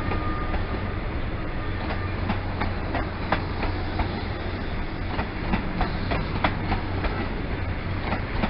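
Mark 3 coaches of an InterCity 125 high-speed train rolling past as it pulls out, the wheels clicking over rail joints over a steady low rumble.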